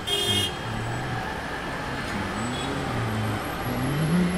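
Car driving along a street, heard from inside the cabin: steady engine and tyre noise.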